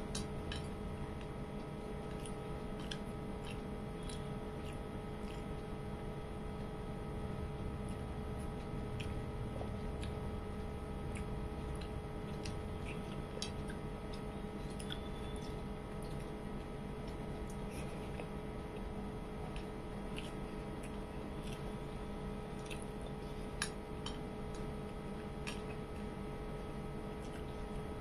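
Fingers mixing rice on a plate and chewing: soft, irregular small clicks and squishes over a steady hum.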